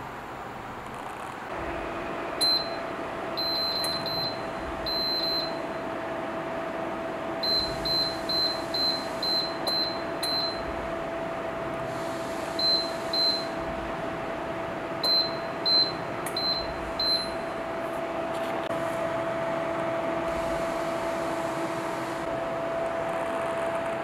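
Wall-mounted bathroom fan heater switching on and running with a steady hum from its fan. Its touch control panel beeps with each button press, singly and in quick runs of several beeps as the temperature setting is stepped.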